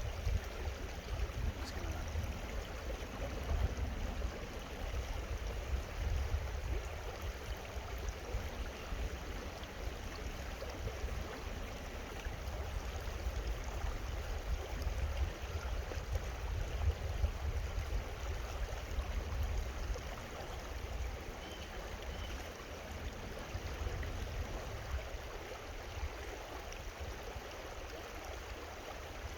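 Creek water running steadily, with an uneven low rumble underneath.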